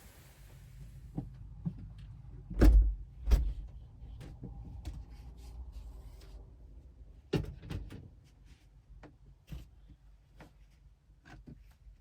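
Scattered knocks and clicks, with two heavy thumps about three seconds in and another pair near the middle, like doors and things being handled.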